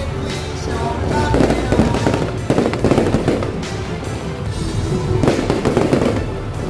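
Aerial fireworks bursting and crackling in a dense, continuous barrage, with music playing underneath.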